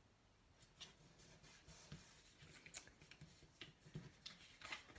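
Faint rustling and scattered light ticks of cardstock being slid into place and pressed flat by hand.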